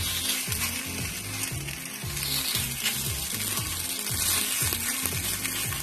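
Semolina-and-curd vade batter sizzling in oil in the cavities of an appe pan on low flame, a steady hiss. Background music with a steady bass beat runs underneath.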